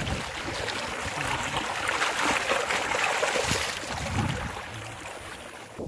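Floodwater from a brimming village pond gushing out fast through a narrow drainage channel: a steady rush of water, louder in the middle and fading near the end.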